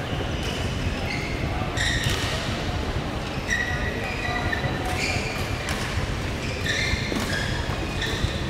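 Badminton hall sounds: shoes squeaking on the court mats and a few sharp racket hits on the shuttlecock, over a steady low hum of a large hall.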